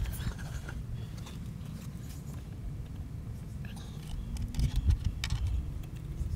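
Small clicks and rustles of hands handling wires and a sensor lead at battery terminals, busiest about two-thirds of the way in, over a steady low rumble.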